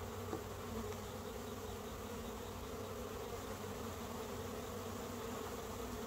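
Honeybees buzzing around an opened hive: a steady, unbroken hum of many bees.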